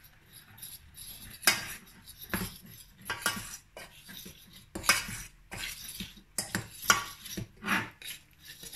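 A utensil stirring and scraping against the inside of a stainless steel saucepan in short, irregular strokes as flour is worked into hot melted butter to make a roux.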